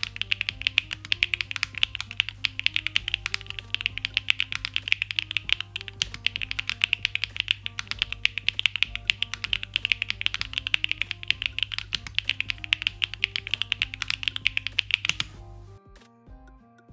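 Fast, continuous typing on a MODE Sonnet custom mechanical keyboard with PBT keycaps, a dense run of keystroke clacks that stops about fifteen seconds in. Background music plays underneath.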